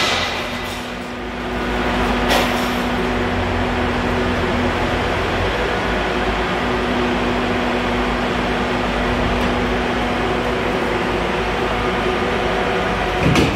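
Hydraulic demolition machine running steadily, with a constant hum and one sharp knock a little over two seconds in as its boom-mounted breaker works a concrete-block wall.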